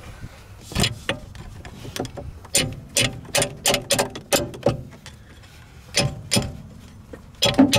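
Ferrari Dino 246's brake master cylinder being struck with a metal tool: a run of sharp metallic taps, several a second, with a short pause about two-thirds of the way through. The cylinder is being knocked to free a brake that has locked on and is dragging.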